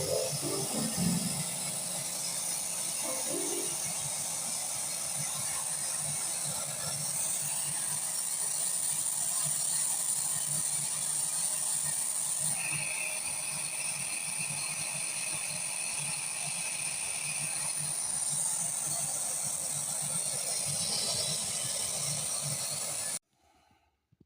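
Yamaha PSR-740 keyboard's speakers giving out a steady crackling, hissing noise, the sound-noise fault being repaired. A thin steady whistle joins in for about five seconds in the middle, and the noise cuts off suddenly near the end.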